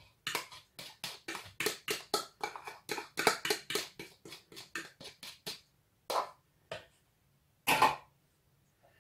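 A fork scraping and clicking against the inside of a small bowl in quick strokes, about five a second, as the last of the egg is scraped out. The strokes stop about five and a half seconds in, followed by three single knocks.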